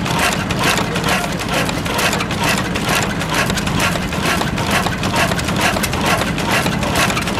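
1908 Austral 5.5 hp stationary oil engine running steadily. It gives a fast, even clatter of beats over a low drone.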